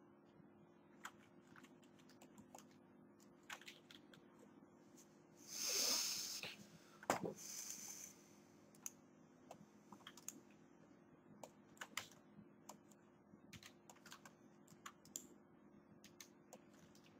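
Sparse, irregular computer keyboard keystrokes and mouse clicks over a faint steady hum. About six seconds in, a louder hissing rustle lasts about two seconds.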